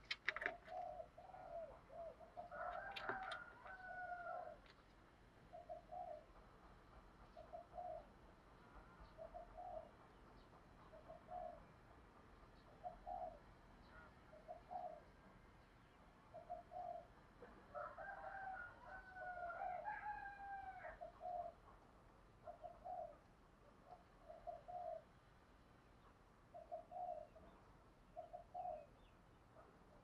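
Spotted dove cooing as a caged decoy to lure wild doves: short, low coos every one to two seconds. It breaks twice into a longer, louder phrase with gliding notes.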